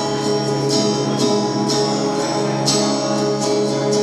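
Guitar strummed in a steady rhythm, about two strokes a second, over held chords: the live instrumental intro of a song.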